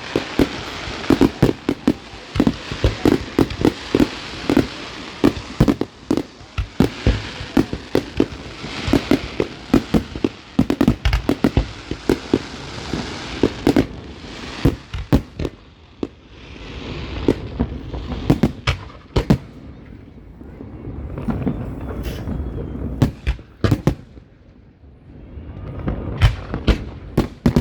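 Fireworks going off: a dense run of sharp bangs and crackles for the first half, thinning to scattered bangs with stretches of hissing crackle in the second half.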